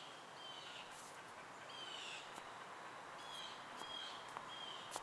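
A bird chirping repeatedly in short, falling notes over a faint steady outdoor hiss.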